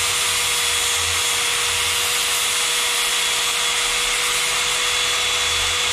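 Handheld power tool running steadily at high speed with a constant whine and grinding hiss, grinding down small tabs on a breather fitting.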